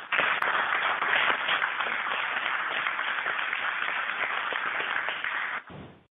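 Applause from a group of people, a steady dense clapping that cuts off sharply near the end.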